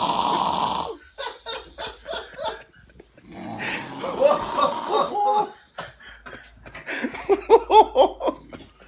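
A loud snore that stops about a second in, then people laughing: short stifled chuckles at first, breaking into open laughter near the end.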